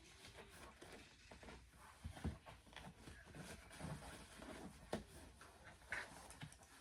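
Faint, scattered knocks and clicks over light rustling, from gaming-chair parts being handled during assembly.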